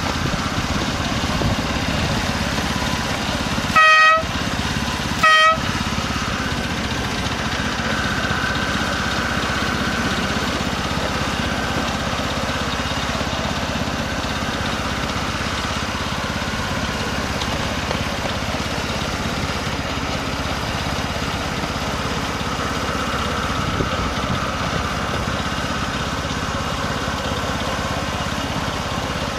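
7¼-inch gauge miniature BR Class 03 outline locomotive running along the track with a steady engine and wheel noise, and two short toots of its horn about a second and a half apart, around four seconds in, sounded for a whistle board.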